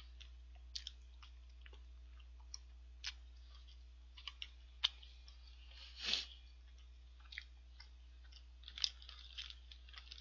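Close-miked chewing of McDonald's french fries dipped in chili sauce: faint, scattered wet mouth clicks and smacks, with a short, louder noise about six seconds in.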